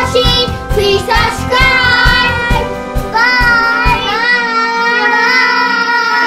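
Children singing an upbeat song over music with a steady drum beat. About four seconds in, the beat drops out and the voices hold long notes.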